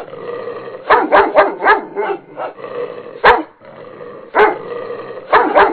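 A dog barking: a quick run of about five barks about a second in, two single barks a second apart in the middle, and another quick run starting near the end.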